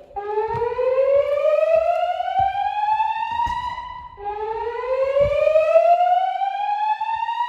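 Gentex fire alarm speakers, driven by a Notifier NFS2-3030D panel with DVC digital voice system, sounding the slow whoop evacuation tone: two rising sweeps, each about four seconds long. This is the alert tone that alternates with the spoken evacuation message.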